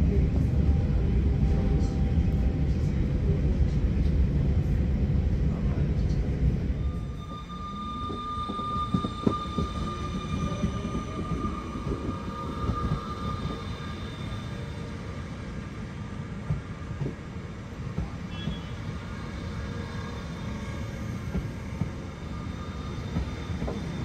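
Loud, steady low rumble of a train running, heard from inside the carriage. About seven seconds in it gives way to a Siemens Desiro ML electric multiple unit moving along a station platform, its traction motors whining in rising tones with steady high notes over the rolling.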